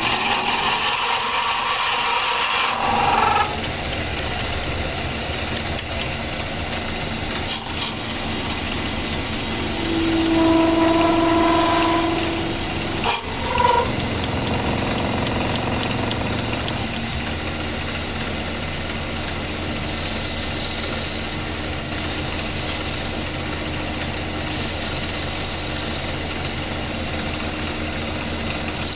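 A power tool running steadily, with a few brief held tones over its noise.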